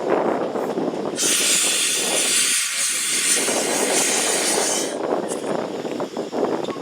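A steam locomotive blowing off steam: a loud, even hiss starts about a second in and cuts off after about four seconds. A steady rough rumble runs underneath it.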